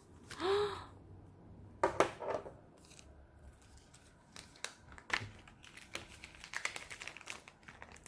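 Paper and plastic packaging being handled and opened, crinkling and rustling, with scattered sharp clicks and a loud crackle about two seconds in. There is a brief pitched sound about half a second in.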